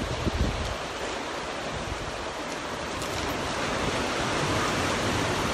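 Ocean surf washing over a rocky shore as a steady rush that swells louder in the second half, with low wind rumble on the microphone near the start.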